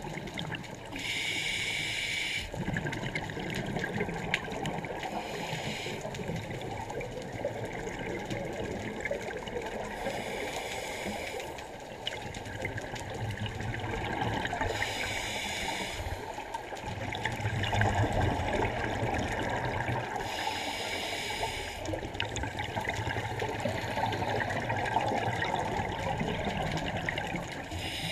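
Scuba regulator breathing heard underwater: a hissing inhale every five seconds or so, with muffled bubbling and water noise between breaths.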